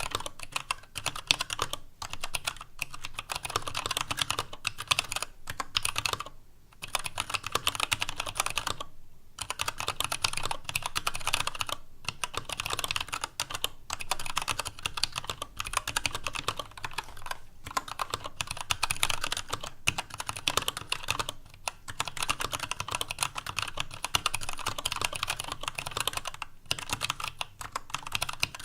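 TADA68 65% mechanical keyboard with Gateron Brown tactile switches, a stainless steel plate and PBT keycaps, being typed on in quick continuous runs broken by short pauses. Its case sounds hollow.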